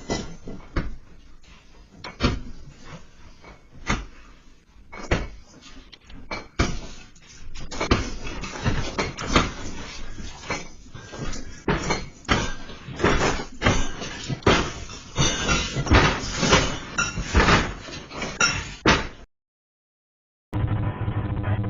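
Doors and loose fittings rattling and banging as a building is shaken by a strong earthquake: irregular knocks that come thicker and louder from about eight seconds in, then cut off suddenly. After a brief silence, music starts near the end.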